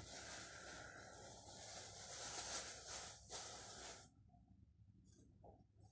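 A steady hiss with a brief dip about three seconds in, cutting off abruptly about four seconds in.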